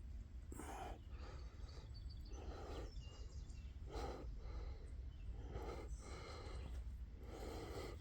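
A person breathing audibly close to the microphone, six breaths about a second and a half apart, over a low steady rumble.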